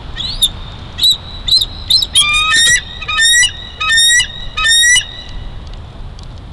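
Bald eagle calling: a few short high chirps, then four longer high-pitched calls in quick succession, ending about five seconds in.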